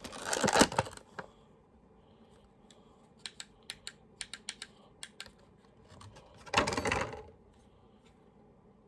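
Handling noise from a small plastic toy helicopter and its charger: a scatter of light clicks, with two louder rustling bursts about a second long, one at the start and one about six and a half seconds in.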